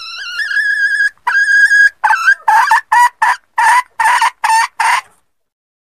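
Red junglefowl hen calling: two long drawn notes, the first rising in pitch, followed by a quick run of about eight short clucks that stops about five seconds in.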